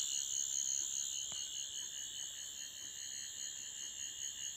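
Toy 12th Doctor sonic screwdriver playing its electronic sound effect, triggered by its touch pad: a high, warbling whine that slowly fades, with a faint click about a second in.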